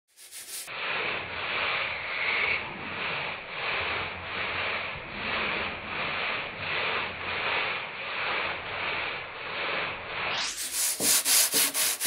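Hand wet sanding of a rusty steel tractor hood: sandpaper rubbed forward and backward over the wet, soapy metal in even strokes about one a second, quickening to about three strokes a second near the end.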